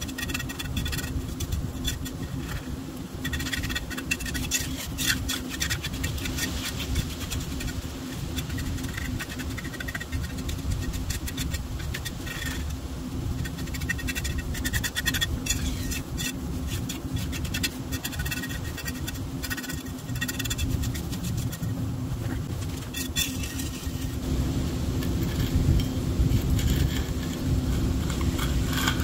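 A hand tool scraping and tapping irregularly on wet concrete as a floor patch is feathered and levelled, over a steady low hum.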